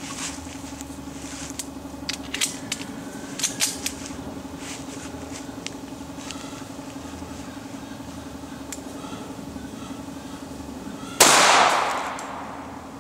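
A single pistol shot from a .45 ACP Kimber Raptor 1911 near the end: a sharp crack whose echo fades over about a second. Before it there are a few faint clicks over a steady low hum.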